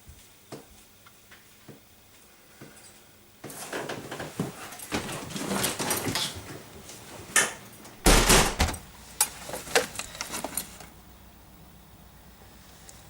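A door being handled: a few faint clicks, then several seconds of rattling and clattering with a loud thump about eight seconds in.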